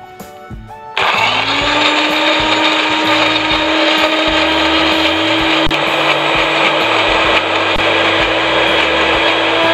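Small electric blender with a grinder jar switched on about a second in: the motor spins up with a short rising whine, then runs loud and steady. It is grinding shallots, garlic, candlenuts and coriander with a little water into a spice paste.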